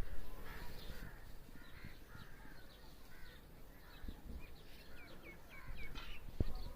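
Birds calling and chirping outdoors, with a run of four short falling chirps about five seconds in, over low rumble and a brief low thump near the end.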